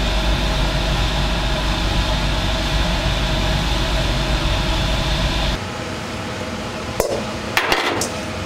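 Commercial gas wok burner running steadily with a low rumble, while water drips from a perforated ladle into the wok. The loud running drops away suddenly about five and a half seconds in. A few sharp metal clinks follow near the end, a metal bowl against the wok.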